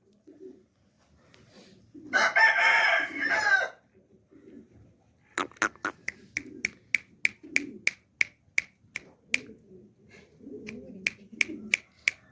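A rooster crows once, a loud call lasting about a second and a half. About five seconds in, a run of short sharp clicks begins, roughly three a second.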